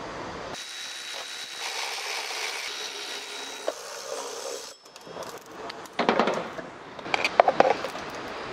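Hand tools working on an engine's plastic timing cover and its bolts: scattered clicks, knocks and scraping of metal tools against the engine, mostly in the second half, over a steady hiss with a faint high whine in the first few seconds.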